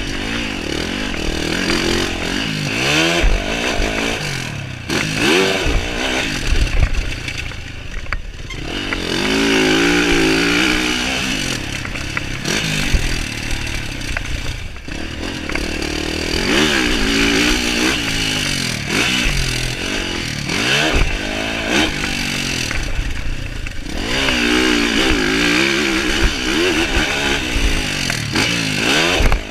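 Yamaha SR500 single-cylinder four-stroke motorcycle being ridden hard, its engine note climbing and dropping over and over as the throttle opens and closes.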